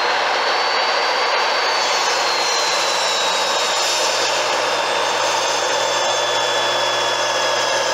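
Ryobi TSS103 10-inch sliding compound miter saw running at full speed with a new 60-tooth Avanti Pro blade, its 15-amp motor giving a steady high whine. The whine sags slightly in pitch as the blade is brought down through a wooden board, then picks back up near the end.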